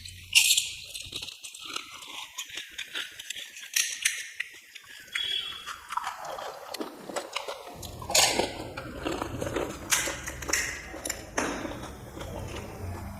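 Close-up chewing of panipuri, with the crisp puri shells crunching and wet mouth sounds from the water filling, many short sharp crackles throughout.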